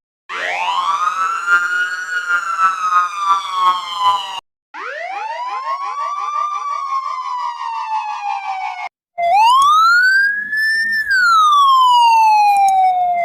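Electronic emergency-vehicle siren tones, three different patterns one after another with short breaks between. The first rises then slowly falls. The second is a run of quick rising sweeps that settles into a slow fall. The last is a slow wail that rises and falls once.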